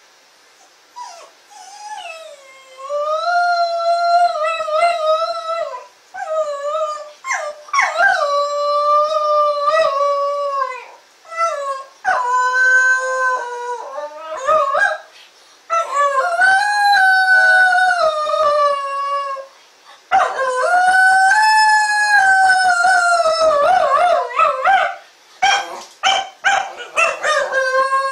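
Shetland Sheepdog howling: about six long, wavering howls of several seconds each with short breaks between, opening with a few short rising notes.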